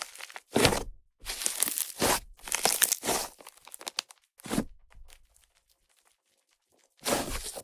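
Fluffy butter-clay slime made with Yoda clay being squished and pressed by hand, in a series of uneven fizzing, crackly squelches. The fizzing comes from air worked into the clay. A quiet spell of about two seconds comes before one last squish near the end.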